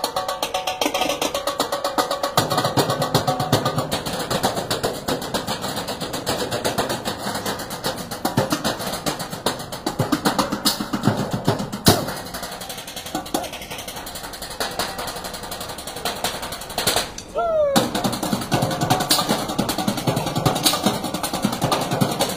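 Percussion group drumming with sticks on galvanized metal trash cans and their lids, a fast, dense, steady rhythm. The drumming breaks off for a split second about seventeen seconds in.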